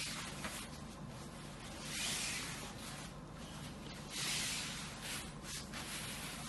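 Silk saree fabric rustling as it is handled and spread out, in soft swishes about two seconds apart.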